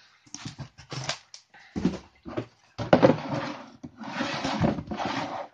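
A plastic tub and its paper packing being handled: a string of short rustles and scrapes, growing longer and denser in the second half.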